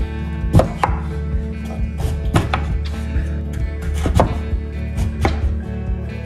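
Kitchen knife cutting through raw butternut squash and knocking on a wooden cutting board: a series of sharp knocks, several in quick pairs, over background music.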